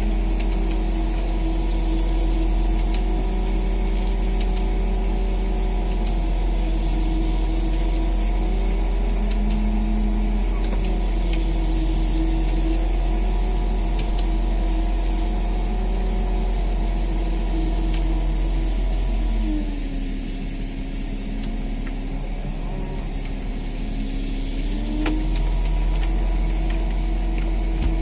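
Fishing boat's engine and line hauler running steadily while a longline is hauled in, with wavering tones that rise and fall. About two-thirds of the way through, the low drone drops and the pitch slides down for several seconds, then climbs back up.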